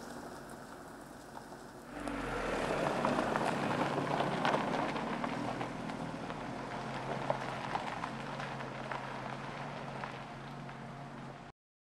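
Mitsubishi ASX driving slowly, its engine running steadily under a crackle of tyres rolling over the track. The sound gets louder about two seconds in and cuts off suddenly near the end.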